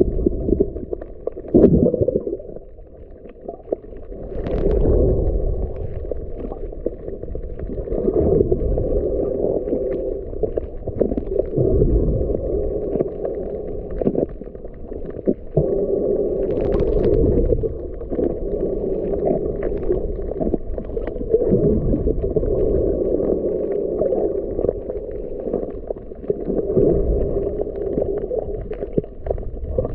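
Muffled underwater sound picked up by a camera held below the surface: a low sloshing rumble that swells and fades every few seconds, with scattered faint clicks.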